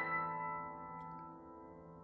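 Soft background piano music: a chord struck just before rings out and slowly fades away.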